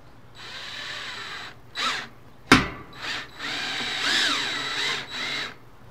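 Cordless drill driving a screw into a metal chair frame, running in three bursts with its motor pitch rising and falling as the trigger is worked. There is a sharp click about two and a half seconds in.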